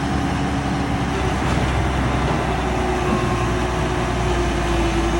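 Heavy diesel engine running steadily with a deep rumble, its tone stepping up a little about halfway through.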